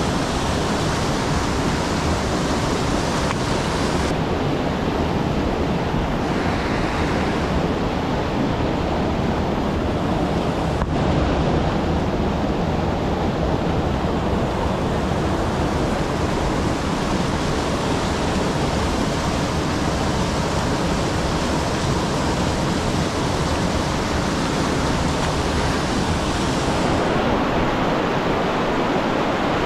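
Steady rush of a river flowing fast over rocks, an even, continuous noise of moving water.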